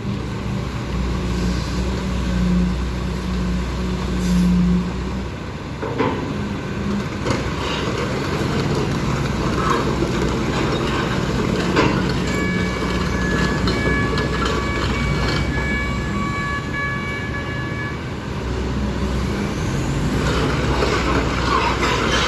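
Lovol FR220D crawler excavator at work: its diesel engine runs steadily under load, with a few sharp metallic clanks. From about halfway to near the end, a high, slightly broken tone sounds over it for several seconds.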